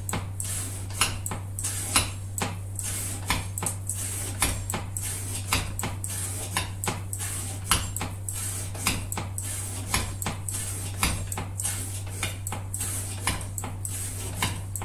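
Knife with a CPM 125V steel blade making repeated cutting strokes, about two a second, as part of an edge-retention cutting test, over a steady low mains hum.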